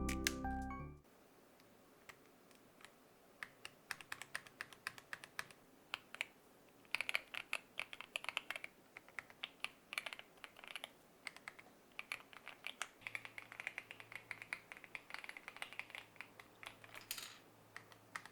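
Typing on a mechanical keyboard fitted with a freshly made polymer clay keycap, testing it: scattered key clicks start a few seconds in and become a fast, steady patter.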